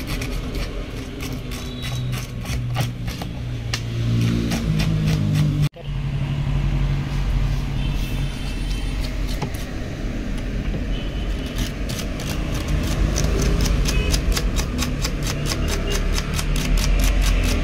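A motor vehicle engine running, its pitch stepping up a few seconds in, with fast regular ticking over it; the sound cuts out for an instant about six seconds in.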